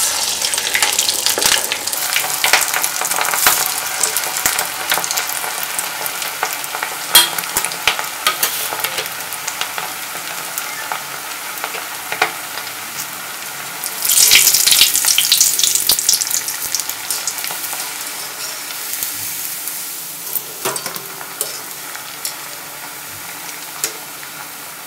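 Masala vadai patties of ground chana dal and rice deep-frying in hot oil: a loud sizzling hiss with sharp crackles as they go in. A second loud surge of sizzling comes about 14 seconds in, then the frying settles and grows quieter toward the end.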